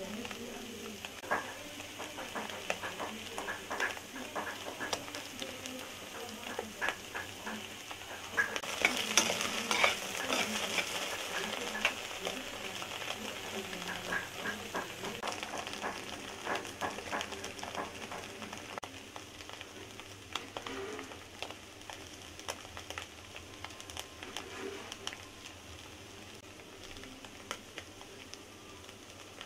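Goat brain pieces frying in hot oil in a kadai: a steady sizzle with many scattered crackling pops, louder for a few seconds about a third of the way in.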